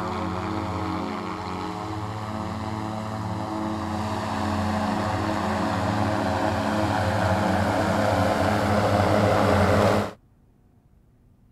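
Archer electric eVTOL aircraft in flight, its many electric propellers making a steady hum of several layered tones that grows louder as it approaches. The sound cuts off abruptly about ten seconds in.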